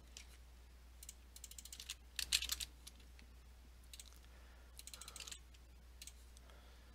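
Computer keyboard keys tapped in a few short, quick bursts, faint, over a low steady hum.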